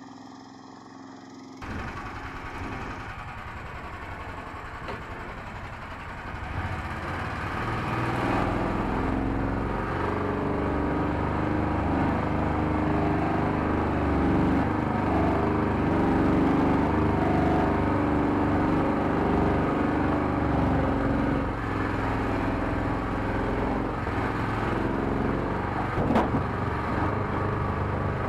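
Engine of a homemade wheeled all-terrain vehicle running as it drives, heard from inside its tarp-covered cab, fainter for the first second or two and growing louder about seven seconds in. A single sharp knock near the end.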